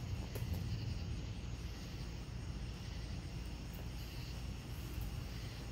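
Steady chorus of night insects chirring, over a continuous low rumble.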